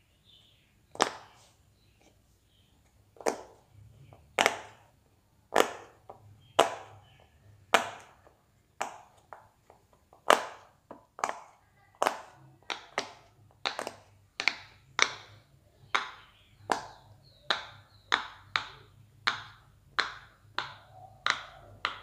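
Silicone pop-it fidget toy bubbles pressed one after another, each giving a sharp pop. The pops are sparse at first and run at about two a second from halfway on.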